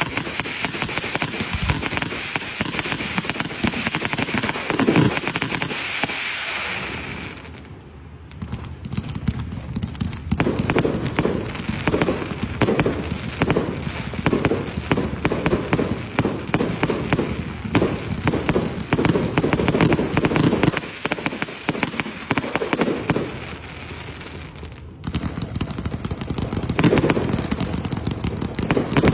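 Firecrackers going off in a dense, rapid crackle of pops, easing off briefly about seven seconds in and again about three-quarters of the way through before picking up again.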